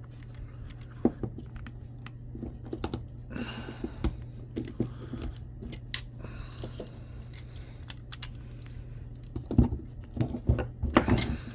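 Hand tools, a screwdriver and cutters, clicking and scraping against resin-coated copper windings as they are pried out of an electric motor. The clicks come scattered and sparse, then bunch into a faster, louder run near the end.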